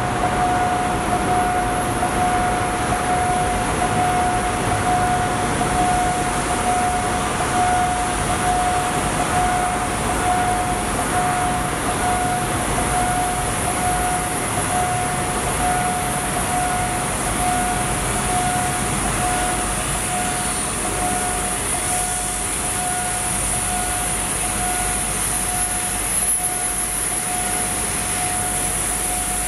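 Railway level-crossing warning alarm sounding one steady tone that pulses slightly, over a continuous rumbling hiss of train and station noise.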